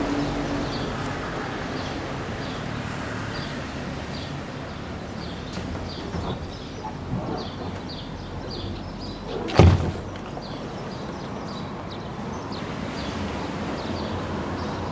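A Hunter Fishing Up kayak being set down at the water's edge of a concrete boat ramp, its hull landing with one loud thud about ten seconds in. Steady outdoor background noise runs underneath, with faint repeated high chirps.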